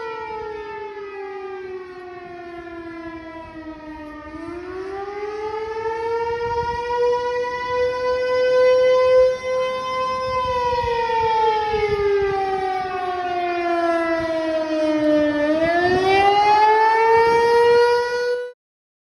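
ASC T-128 electromechanical warning siren wailing as its horn rotates, recorded on an iPhone 11 microphone. Its single tone falls, rises, falls again and rises again, and the sound swells and ebbs as the horn turns. It cuts off suddenly near the end.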